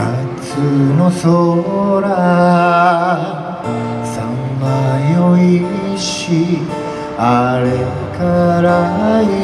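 A man singing while accompanying himself on an acoustic guitar in a live solo performance.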